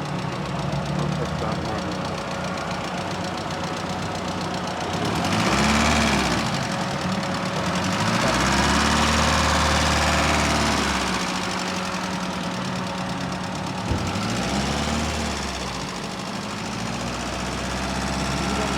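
A vehicle engine idling and being revved up three times, the longest rev held for a few seconds, with a short click near the third. The engine is making the abnormal noise that is the fault being diagnosed.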